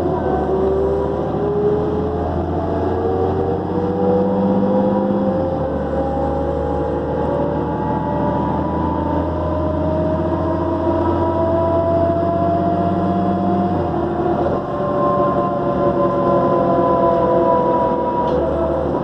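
New Flyer D40LF diesel transit bus under way, its turbocharger whining in slowly rising tones over the low engine note. The low engine note changes abruptly twice, about five and a half and fourteen seconds in, as the automatic transmission shifts, and the whine climbs again after each shift.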